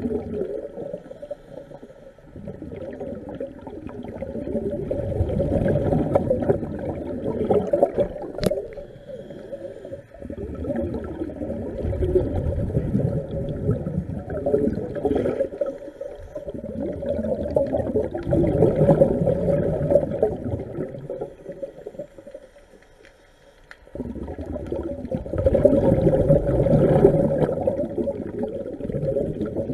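A scuba diver breathing underwater, heard from the diver's own camera: bubbling exhalations swell up every six or seven seconds and die away between breaths. A single sharp click comes about eight seconds in.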